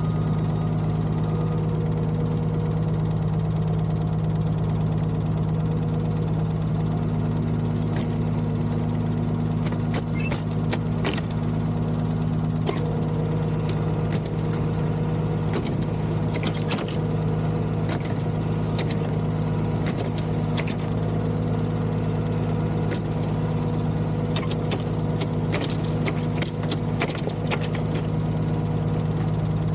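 Diesel engine running steadily at a constant speed, with scattered sharp clicks over it from about a quarter of the way in.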